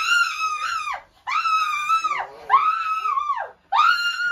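A young boy screaming: four long, high-pitched screams in a row, about a second each, each rising and then falling away in pitch.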